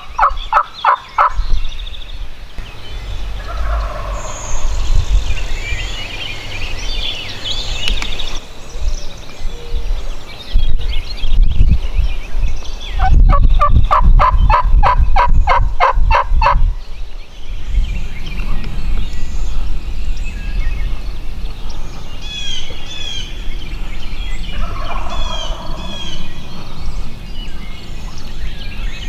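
Turkey yelping: a series of evenly spaced notes, about three a second, once at the start and again about 13 seconds in. Small birds chirp near the end.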